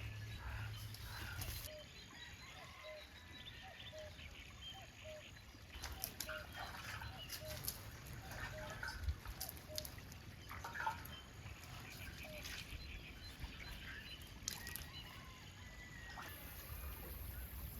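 Farmyard poultry calling: a run of short notes repeated about every half second, with scattered light clicks and knocks.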